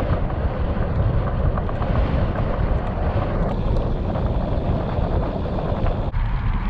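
Wind rushing and buffeting over the microphone of a handlebar-mounted action camera on a moving bicycle, mixed with the steady hum of the tyres on the path. Near the end the rushing suddenly thins.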